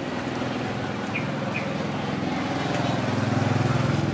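A small motor engine running with a fast, even pulse, growing louder until about three and a half seconds in, then easing slightly.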